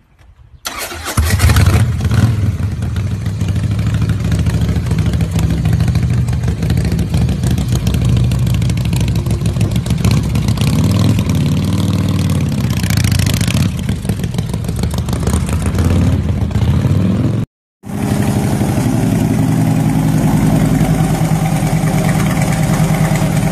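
Harley-Davidson V-twin on a custom chopper with short drag pipes, starting about a second in and running loud, revved up and down a few times around the middle. After a brief break to silence, a Harley-Davidson Road King's V-twin idling steadily.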